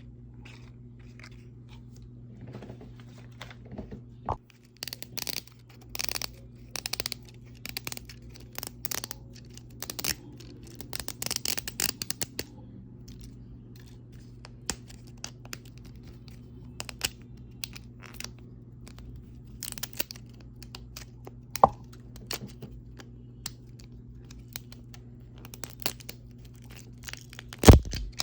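Hands peeling and tearing the plastic wrapping of Mini Brands toy capsules, with scattered crinkles and small plastic clicks in short bursts; a steady low hum runs underneath.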